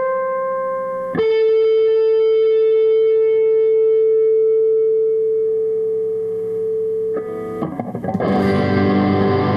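Electric guitar played through an amplifier with effects, sounding long held notes. One note holds steady for about six seconds, and near the end it gives way to a fuller, pulsing sound.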